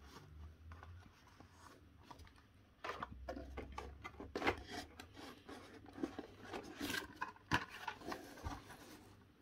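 Hot Wheels blister-pack cards being handled: cardboard backings and plastic blisters rubbing and scraping against each other and the cardboard box as a card is pulled out. The first few seconds are soft, then come irregular short scrapes and taps.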